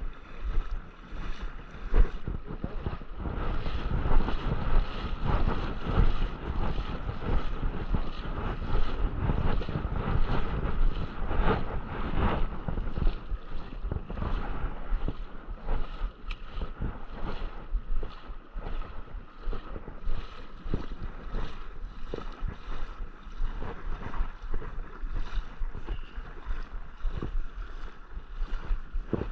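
Creek water rushing steadily over rocks, with wind buffeting the microphone and small knocks throughout.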